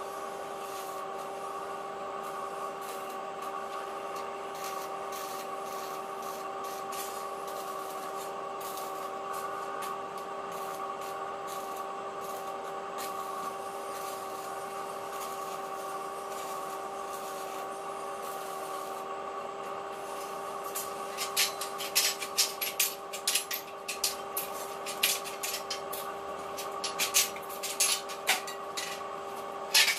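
Electric arc welding of a steel window grille: a steady hum with a faint crackle from the arc. About two-thirds of the way in, a run of sharp metallic clicks and knocks takes over.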